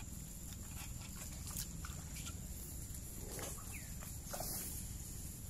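Chickens clucking faintly in the background over low steady outdoor noise.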